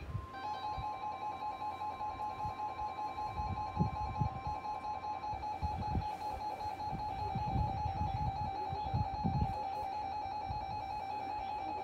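Weather radios sounding a flash flood warning: the NWS 1050 Hz attention tone holds steady for about five seconds, over a weather radio's alarm beeping rapidly and continuously. Music plays beneath.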